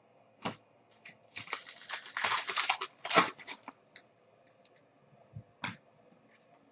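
A trading-card pack wrapper is torn open and crinkled for about a second and a half, starting a little over a second in. Sharp clicks and flicks of the cards being handled come before and after it.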